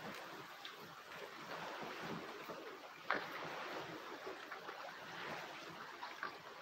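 Steady outdoor hiss of wind and lake water washing at the shore, with scattered faint ticks and one sharp click about three seconds in.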